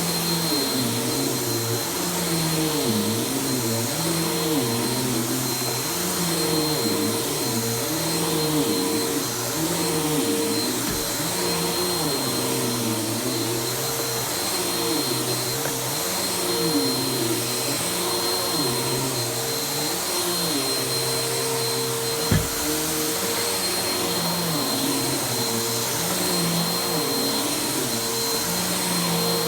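Vacuum cleaner running steadily over carpet, its motor hum holding a constant pitch while the lower tones waver up and down every second or two. A single sharp knock comes about three-quarters of the way through.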